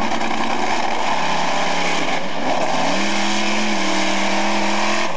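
Monster truck engine revving hard; its pitch sags, then climbs about three seconds in and holds higher before dropping sharply at the end.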